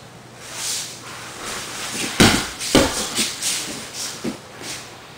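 Two grapplers scrambling on a rubber floor mat: bodies and clothing scuffing and rustling, with two heavy thuds of bodies hitting the mat about two seconds in, half a second apart, and a few lighter knocks after.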